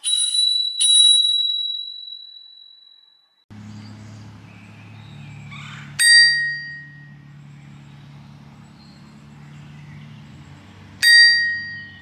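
Thumb-lever bicycle bells being rung. A small chrome bell is struck twice in quick succession and its high ring fades over about three seconds. Then a black bicycle bell is struck once about six seconds in and again near the end, each time with a lower, shorter ring, over a steady low background hum.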